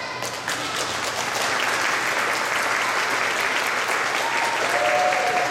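Audience applauding steadily, starting just as the routine's music stops, with a short pitched call from the crowd near the end.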